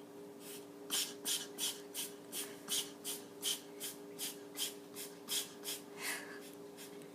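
A pet's quick, rhythmic breaths, about three short hissing breaths a second, over a steady low hum; the breaths stop near the end.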